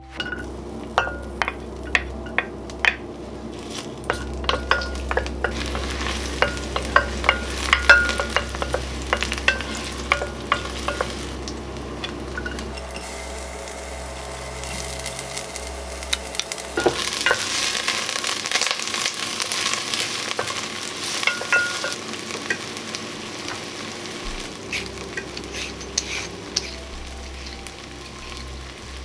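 Garlic sizzling in hot oil in a pot, with a utensil clicking against the pot again and again as it is stirred.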